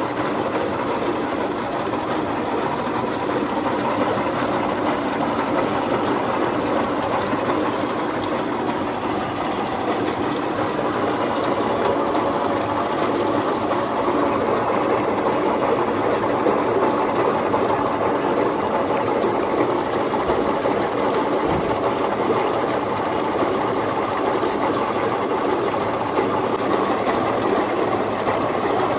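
Factory machinery running with a steady, continuous mechanical rattle.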